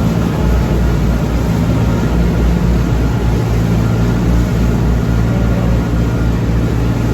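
An engine or large machine running steadily with a constant low hum.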